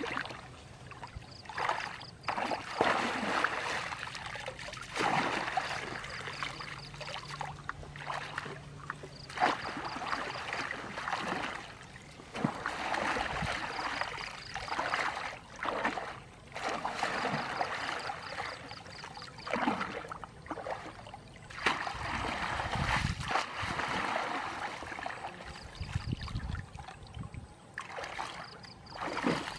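Water splashing and draining through a woven bamboo basket as it is scooped through shallow water and lifted, repeated several times in bursts of a few seconds.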